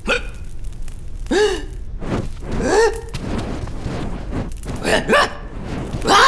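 Animated character's wordless vocal sounds: a series of short squeaky yelps, each rising and falling in pitch, then a louder cry right at the end as his tail catches fire.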